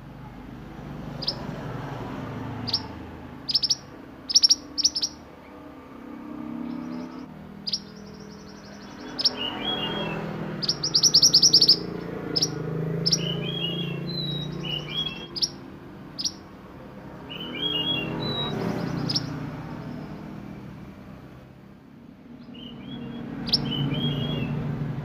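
Male mantenan songbird singing: sharp, loud chip notes, a fast rattling trill about eleven seconds in and again at the end, and short warbled phrases. A low rumbling background noise swells and fades underneath.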